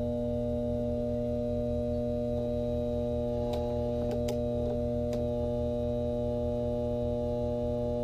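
Microwave oven transformer, rewound with a few turns of battery cable as a low-voltage high-current secondary, humming steadily under load while it drives current through a screw and heats it red-hot. Three short sharp crackles come about halfway through.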